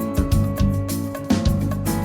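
Instrumental intro music with plucked guitar over a steady beat.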